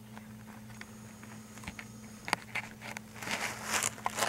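Handling noise: scattered small clicks, taps and rustles, with a brief hiss about three seconds in, over a steady low electrical hum.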